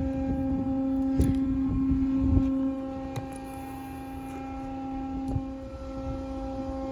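A steady droning hum at one held pitch with overtones, over low wind rumble on the microphone.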